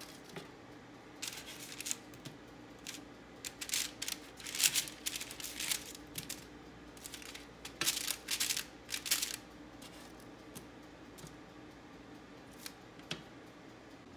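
A metal slotted spatula scraping and clicking against parchment-lined metal baking sheets as baked tempeh pieces are flipped and slid about. The sound comes as a run of short scrapes and taps over several seconds, then a couple of single clicks near the end.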